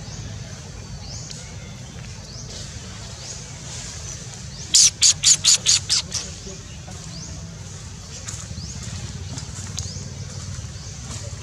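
A bird calls out a quick run of about seven sharp, high notes, each fainter than the last, a little under halfway through. Faint, short rising chirps come now and then over a steady low rumble.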